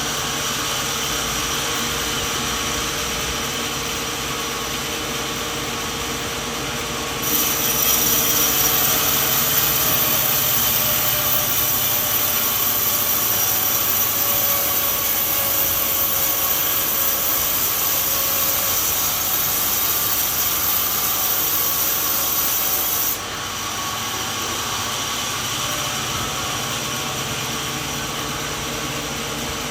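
Sawmill running, its saw cutting through a coconut tree trunk: the steady machine sound grows louder and hissier about seven seconds in as the blade goes through the wood, then drops back to the machine running alone about three-quarters of the way through.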